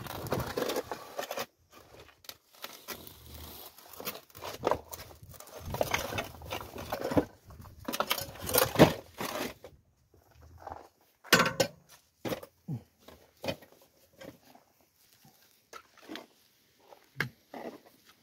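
Irregular rustling, crinkling and scraping with scattered knocks: a person in a disposable protective coverall moving about on dirt and plastic sheeting in a low crawlspace. The sounds come in uneven bursts, busier in the first half and sparser, with sharper clicks, after about ten seconds.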